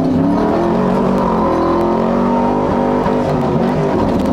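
6.0-litre LS V8 of a Chevrolet Silverado 2500HD pickup running hard under throttle off-road, its engine pitch wavering up and down as the throttle changes.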